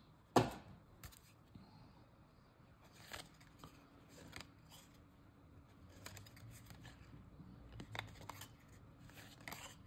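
Trading cards being handled and flipped through one by one: faint, scattered clicks and light snaps of card stock, with soft rustling between them.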